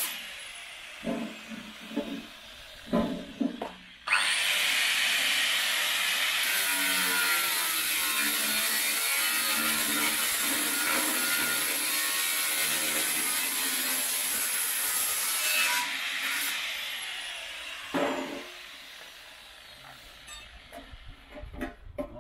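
Angle grinder with a cutting disc slicing through the metal casing of a Range Rover Sport SVR rear silencer: it spins up about four seconds in, cuts steadily for about eleven seconds, then winds down with a falling whine. A few metal knocks come before it starts and after it stops.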